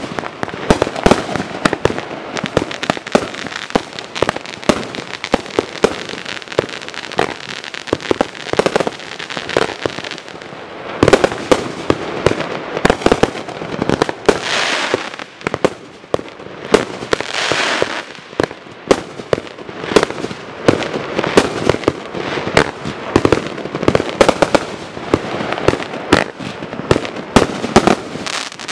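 A Dominator 'On Target' 200-gram consumer fireworks repeater cake firing its shots, a long string of sharp bangs from the tubes and the bursting multi-colored strobing peonies, with a hissing crackle between them. There is a short lull about ten seconds in.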